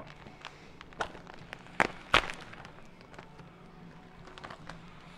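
A few sharp knocks, the loudest about two seconds in, over a faint steady hum.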